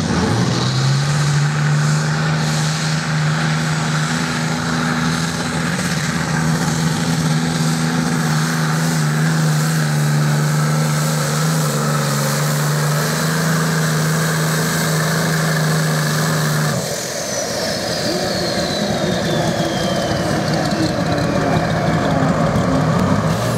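A tractor-pulling machine's turbo-diesel engine running flat out at a steady pitch for about sixteen seconds. The throttle is then cut and the engine note drops away, while a high turbocharger whistle falls slowly in pitch.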